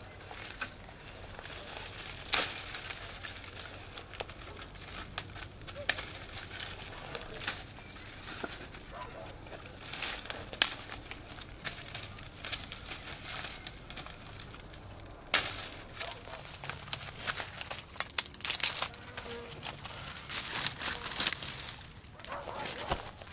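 Dry twigs and brushwood crackling, snapping and rustling as they are gathered by hand, with scattered sharp snaps, then rustling footsteps through tall grass and weeds.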